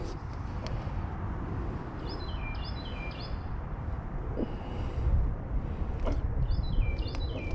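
A songbird singing twice, each phrase a quick run of chirps stepping down in pitch, over a steady low rumble.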